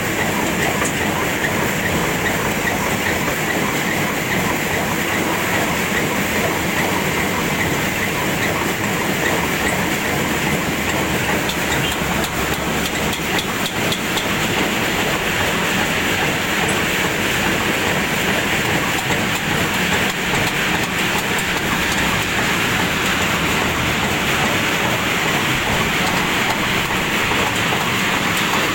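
Two-deck peanut sorting machine running under test: a steady, loud mechanical rattle and clatter that holds unchanged throughout.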